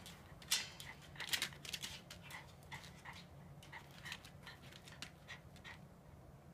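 Norfolk Terrier pawing and knocking at the door of its wire pen, a series of short sharp taps and rattles, two louder ones in the first second and a half, then fainter ones about three a second: the dog is demanding to be let out.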